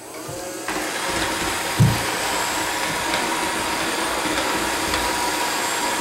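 Roomba 675 robot vacuum starting a spot clean on carpet: its vacuum motor and brushes start up abruptly under a second in, then run steadily with a thin whine. A single low thump comes about two seconds in.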